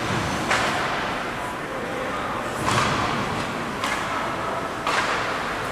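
Hockey game in play: four sharp knocks and slams about a second apart, the hits of sticks and the ball or puck, over steady background noise with distant voices.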